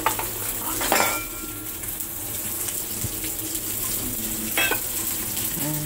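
Shrimp sizzling in a frying pan, a steady hiss, with a metal utensil clanking against the pan once loudly about a second in and again more lightly near the end.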